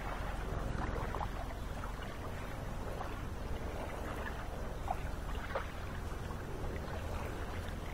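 Lakeshore water sounds: small waves lapping and splashing faintly at irregular moments over a steady low rumble.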